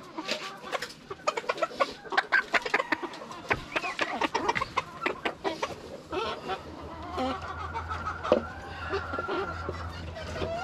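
A flock of chickens clucking in short, quick calls, with longer drawn-out calls held for a few seconds in the second half.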